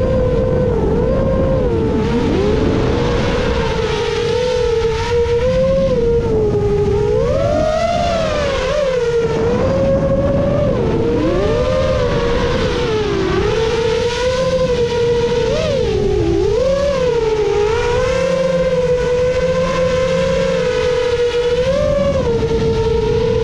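Motors and tri-blade props of a 7-inch FPV quadcopter (Emax Eco II 2806.5 motors, HQ 7x3.5x3 props) whining in flight, the pitch swooping up and down constantly with throttle changes, over a rush of wind and prop wash.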